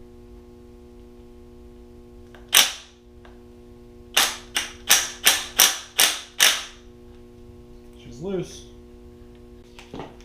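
Impact wrench hammering on a 1JZ-GTE VVTi cam gear's center bolt: one short burst, then seven quick bursts in a row, until the bolt breaks loose.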